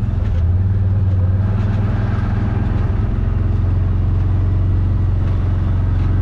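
CFMOTO side-by-side buggy's engine running at a steady, even note.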